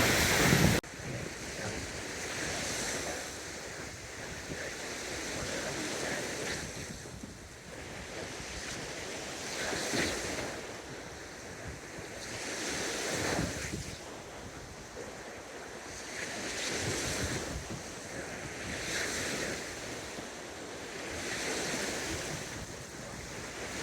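Lake Michigan waves breaking on the beach, swelling and easing every few seconds, with wind buffeting the microphone.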